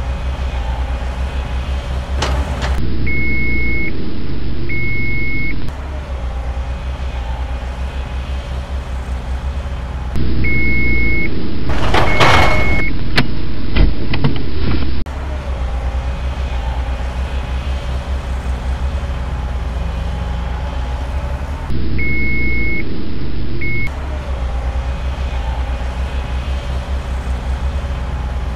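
Heavy-machine sound effect for a backhoe loader: a diesel engine running with an even low throb, in stretches that jump abruptly in level. Reversing beeps sound in short pairs several times, and a brief hiss comes about twelve seconds in.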